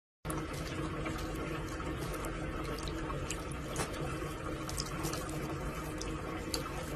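Bathroom tap running a thin steady stream that splashes over a cat's head into the sink, with small drips and splashes. It starts a moment in, after a brief silence.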